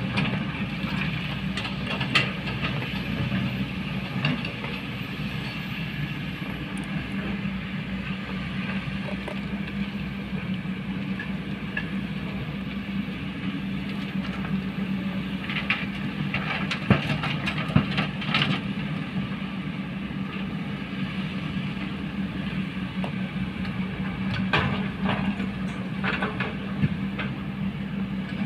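Diesel engines of Kobelco hydraulic excavators running steadily as they dig and load earth. Short knocks of the bucket and rocks come here and there, most of them around halfway and again near the end.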